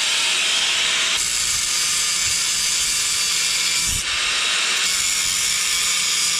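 Electric angle grinder running at full speed and cutting off a hand tool's metal handle: a loud, steady, hissing grind. It turns harsher about a second in as the disc bites, and dips briefly at about four seconds.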